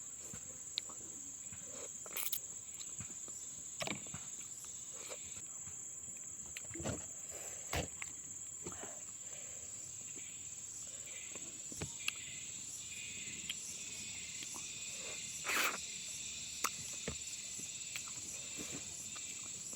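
Scattered short eating noises, clicks and smacks of chewing and picking at a fish head, over a steady high-pitched insect chirring.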